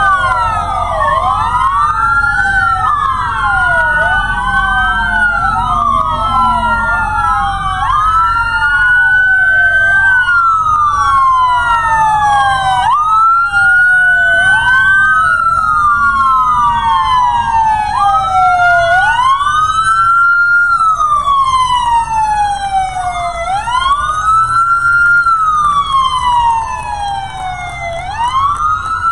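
Several emergency-vehicle sirens from passing sheriff's patrol cars, a fire truck and an ambulance wailing at once, their rising and falling tones overlapping out of step, over the low rumble of the vehicles' engines.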